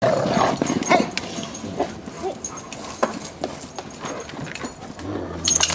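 Several large dogs romping together on grass, with scuffling, paw thumps and brief dog vocalisations, loudest in the first second.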